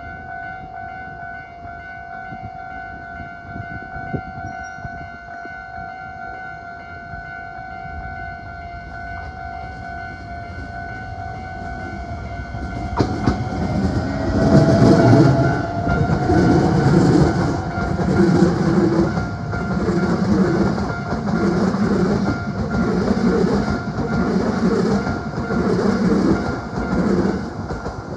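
Hankyu 9300 series eight-car limited express electric train approaching and passing close by from about 13 seconds in, its wheels clattering over rail joints in a regular rhythm about once a second. Underneath, a steady high warning tone sounds.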